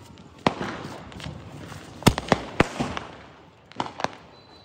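Firecrackers and fireworks going off: a sharp bang about half a second in, three in quick succession around two seconds in, and two more near the end, each echoing briefly.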